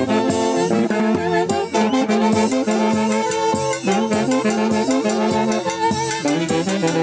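Brass band playing a lively tune, with brass melody lines over a steady percussion beat.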